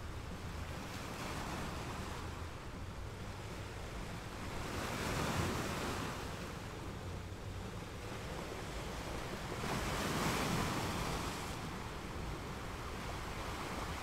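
Sea waves washing in, two swells of surf about five seconds apart over a steady low rumble.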